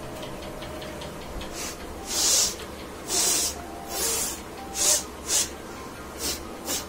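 A person's short, hissing breaths through the nose: about seven sharp sniffs and snorts, unevenly spaced, while a bobby pin tickles the nose to bring on a sneeze.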